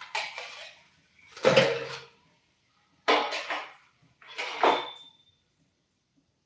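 Kitchen utensils and dishes clattering and clinking, in four separate bursts about a second apart, some leaving a short metallic ring.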